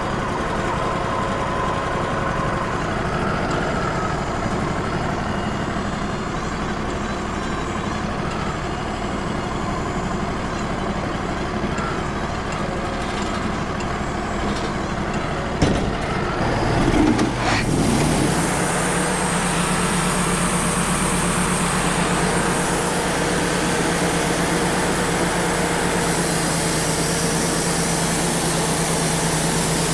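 Wood-Mizer LT35 portable sawmill running steadily. A sharp knock comes a little past halfway, followed by a brief wavering sound, and then the machine settles into a steady hum with a hiss over it.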